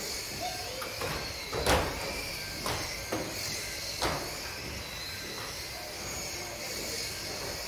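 Small electric model racing cars running laps, their motors whining at a high pitch with the whine wavering as they speed up and slow. Several sharp knocks from the cars striking the track barriers or each other, the loudest nearly two seconds in.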